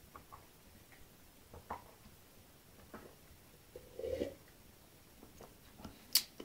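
A man drinking from a ceramic mug, with faint soft sounds, a brief louder gulp about four seconds in, and a sharp click near the end.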